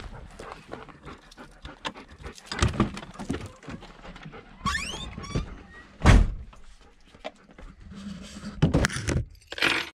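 Knocks and thunks of someone handling gear and climbing into a camper van at its door. A string of light clicks and knocks comes first, then a short rising squeak about halfway. The loudest thunk comes about six seconds in, with a few more heavy knocks near the end.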